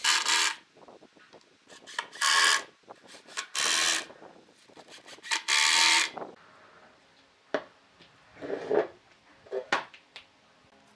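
Cordless impact driver driving screws into a solid-wood tabletop in four short runs of about half a second each, the later ones a little longer. After that come a few knocks and scrapes of wood being handled.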